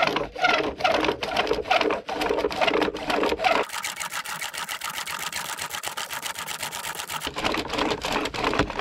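A wooden friction fire set, a spindle driven against a wooden hearth board, worked in fast, rhythmic strokes. From about three and a half seconds in, the rubbing turns to a steadier hiss, then goes back to distinct strokes near the end.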